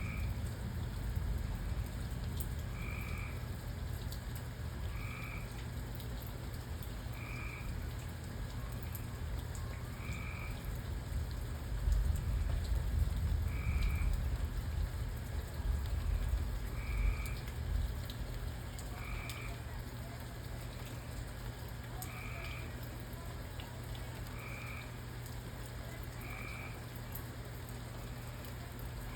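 A frog calling a short note about every two seconds, over steady rain with scattered drop ticks. About halfway through, a low rumble of thunder swells and fades.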